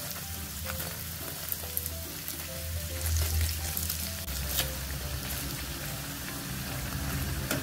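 Breadcrumb-coated bread-and-sausage rolls frying in hot oil in a pan: a steady sizzle with fine crackling.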